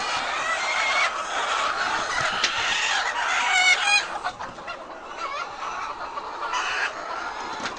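A flock of domestic hens clucking and squawking together in a dense din, with one loud drawn-out call about three and a half seconds in. The calling quietens after about four seconds.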